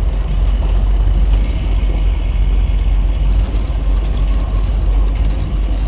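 Boat engine running with a steady low rumble, and the rapid clicking of a fishing reel being cranked as a hooked king salmon is brought toward the boat.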